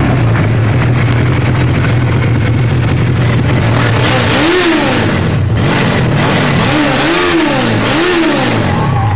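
An engine idling with a steady low hum, revved up and back down three times in the second half.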